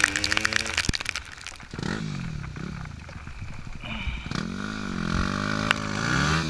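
Dense crackling, rattling noise for about the first second and a half, then a dirt bike engine revving up and down several times as it rides.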